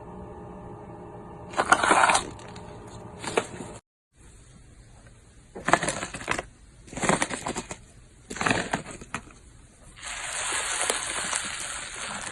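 Slime being kneaded and squeezed by hand, in a series of short bursts about a second apart, with a longer continuous stretch of handling noise near the end.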